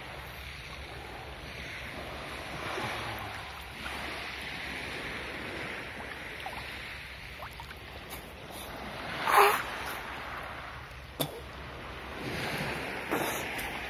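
Calm sea water lapping and sloshing right at the microphone at the surface, swelling every few seconds. A louder splash comes about nine seconds in, and a short sharp knock a couple of seconds after.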